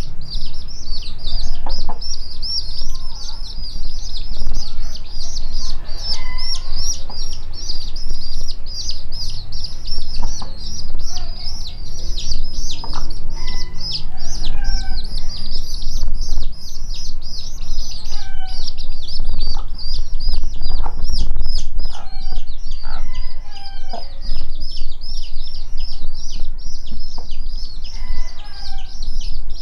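Chicks peeping continuously: rapid, high-pitched chirps, several a second, with the mother hen's lower clucking calls breaking in every few seconds, over a steady low rumble.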